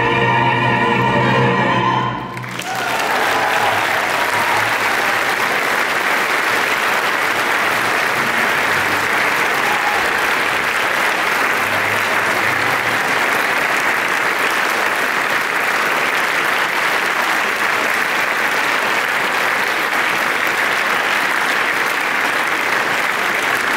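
Choir and orchestra hold a final chord that breaks off about two seconds in, followed by steady, loud applause, the choir members clapping along.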